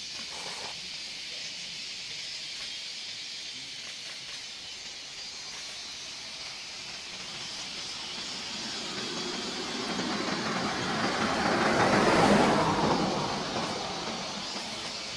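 A vehicle passing on the road, its tyre and engine noise building up over several seconds, loudest about three-quarters of the way through, then fading away. A steady high hiss runs underneath.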